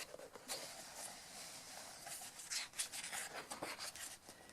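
Pages of a paper coloring book being turned and handled: faint rustling with a few brief scrapes of paper sliding.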